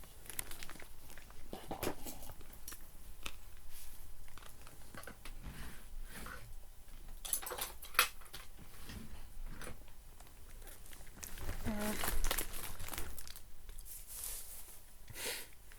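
Close-up eating sounds: chewing and smacking, with crinkling rustles of a food wrapper, and a brief voiced murmur about twelve seconds in.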